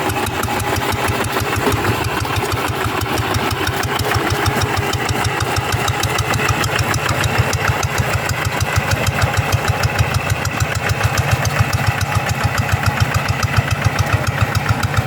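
Two-wheel hand tractor's single-cylinder diesel engine running with a steady chug, about six beats a second. The beats become more pronounced near the end.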